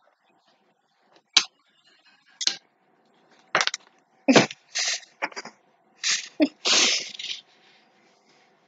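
Stifled laughter with a mouthful of water: short noisy snorts and puffs of breath forced out through the nose and closed lips. They come closer together and last longer toward the end, the longest near the close.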